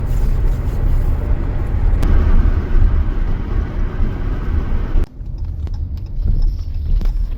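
Car on the move: a steady low rumble of road and engine noise. It changes abruptly about five seconds in, where the hiss above the rumble drops away.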